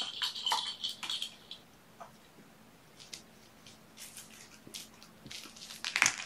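Kitten playing with plastic toys: a quick run of clicks and rattling in the first second and a half as it paws at a ball-track toy, then scattered light taps, and a loud burst of clicks and scuffling near the end as it pounces on small toys on the carpet.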